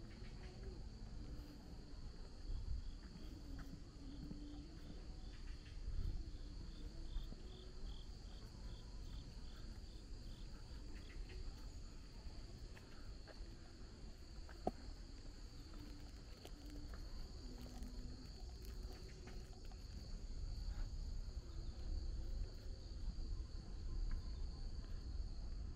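A steady, high-pitched chorus of insects chirping. A few seconds in, a faster pulsing insect call joins for about eight seconds. A low outdoor rumble runs underneath.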